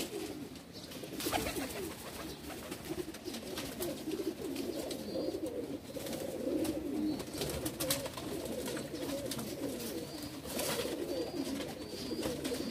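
Domestic pigeons cooing, several birds overlapping in a continuous low, wavering coo.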